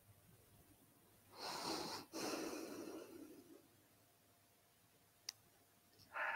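A person taking a deep breath in and letting it out slowly, starting about a second in, followed a little later by one faint click.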